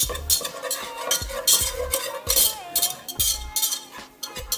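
A utensil stirring and scraping a butter-and-flour roux around a hot pan in quick repeated strokes, about three a second, with the roux sizzling as it cooks.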